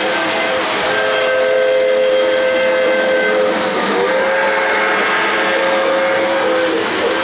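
O-gauge model steam locomotive's onboard sound system blowing its steam whistle, two long chime blasts, the second starting about four seconds in, over a steady hiss.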